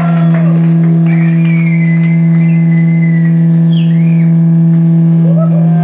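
Amplified electric guitar holding one loud, steady low note as a feedback drone, with a thinner whistling feedback tone wavering above it in the middle. It is the note left ringing as a hardcore punk song ends.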